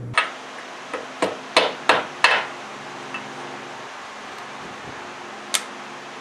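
A 2-inch steel tube being knocked into place in a hole in a steel frame rail: about six sharp metal knocks in quick succession over the first two and a half seconds. About five and a half seconds in comes one sharp click as a digital angle gauge is set on the tube.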